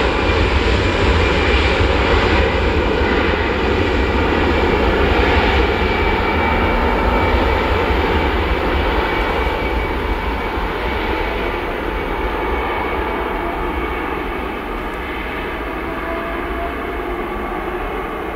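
An Airbus A320-214's twin CFM56 turbofan engines at takeoff thrust on the takeoff roll: a steady rumble with a whine on top. The sound fades gradually as the airliner moves away down the runway.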